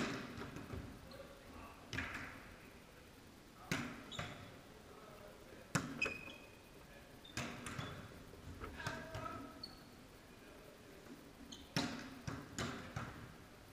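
Volleyball being passed and hit back and forth: sharp smacks of the ball on hands and forearms every one to two seconds, each echoing briefly in the hall.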